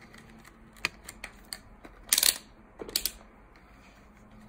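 Light clicks and clatter of a multimeter and its probe leads being picked up and handled among hard parts on a workbench: a few small clicks, then two short louder rattles about two and three seconds in.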